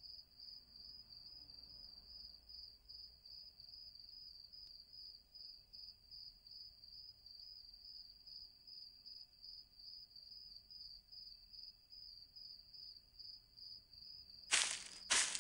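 Night-time cricket chorus: a steady, faint high trill that pulses evenly. About a second before the end, loud crunching footsteps begin.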